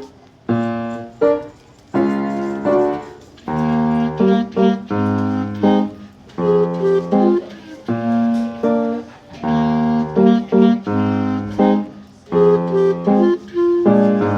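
Band music played on a pitched instrument: a melody of held notes, each sounding evenly and then stopping, in short phrases with brief breaks between them.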